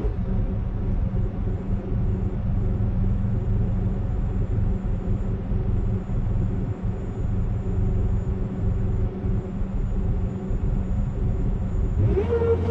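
A heavy machine's engine running with a steady low rumble that wavers in level, as on earthmoving work.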